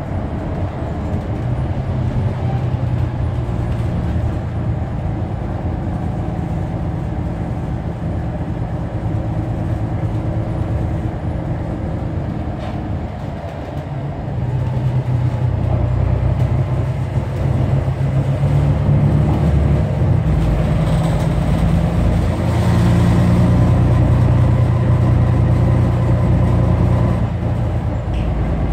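New Flyer XD40 Xcelsior diesel transit bus running on the road, its engine and drivetrain humming steadily. The engine note eases off about 13 seconds in, builds up again from about 14 seconds, and holds higher until just before the end.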